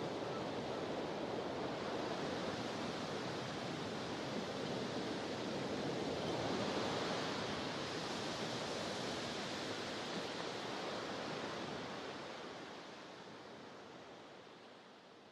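Sea waves washing in a steady rush of surf that swells about seven seconds in, then fades out over the last few seconds.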